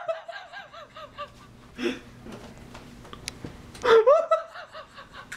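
A man laughing in two fits: a high-pitched laugh that breaks into a quick run of short pulses and fades, then a second loud burst about four seconds in.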